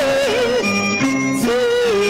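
Beijing opera aria: a woman's high voice sings a wavering line over the accompanying ensemble's held notes, pausing briefly while the instruments carry on, then coming back in near the end.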